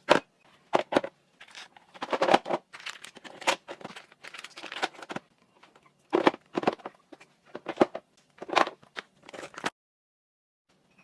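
Hands handling kitchen items: an irregular run of sharp clicks, taps and rustles, like plastic containers and packaging being set down and moved. The sound cuts to silence about a second before the end.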